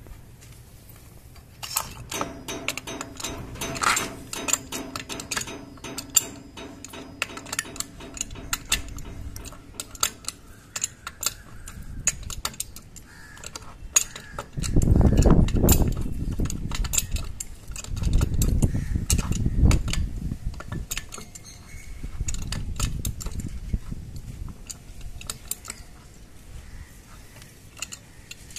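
Clicks and clinks of hand tools on threaded plastic pipe fittings, then three longer spells of scraping as a pipe wrench turns a PVC adapter into the port of a monoblock water pump, the loudest about halfway through.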